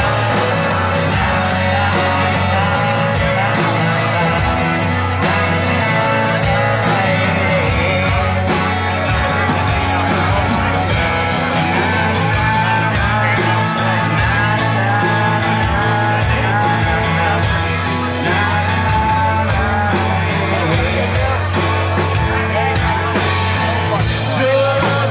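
Live rock band playing a song, an instrumental passage between sung verses with a steady bass line and a wavering melodic lead over it.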